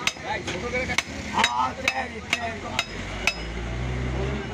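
Heavy butcher's cleaver chopping beef on a wooden log chopping block, sharp strikes about two a second that stop about three seconds in. A low rumble follows near the end.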